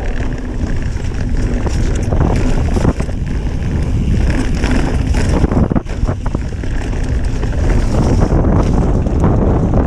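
Wind rushing over the microphone of a mountain bike descending a rough dirt trail, with the steady rumble of the tyres and frequent knocks and rattles as the bike goes over bumps.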